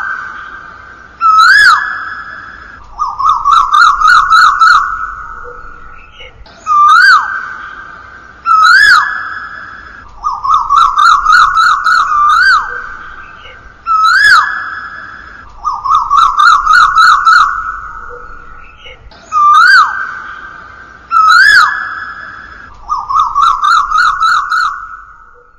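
Asian koel (koyal) calls looped as a ringtone: two sharp rising notes, then a quick run of short rising notes, the sequence repeating about four times.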